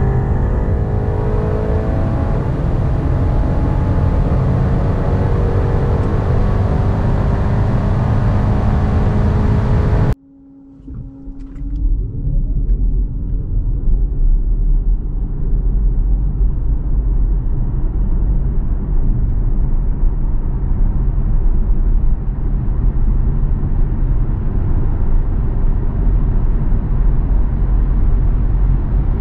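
BMW 330e xDrive Touring's 2.0-litre turbocharged four-cylinder petrol engine pulling hard under full-throttle acceleration in fourth gear, with rising engine pitch and road noise, heard from inside the cabin. About ten seconds in it cuts to near quiet. The car then accelerates on electric power alone: a faint rising motor whine, then tyre and wind noise that grows steadily louder as speed builds.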